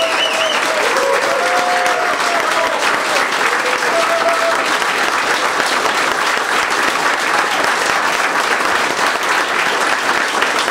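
Audience applauding steadily throughout, with a few voices calling out over the clapping in the first few seconds.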